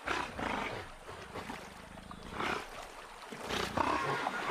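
Giant otters giving harsh alarm snorts and growls at a jaguar, in several sharp, breathy bursts a second or so apart.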